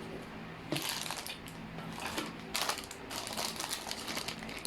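Plastic packaging rustling and crinkling in irregular bursts, with small knocks of parts being handled, as a nebulizer kit is unpacked by hand.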